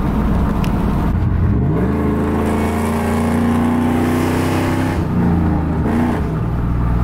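A truck's engine heard from inside the cab while driving under load. The revs climb about two seconds in, hold steady, then change pitch briefly around five seconds in as if shifting, and carry on.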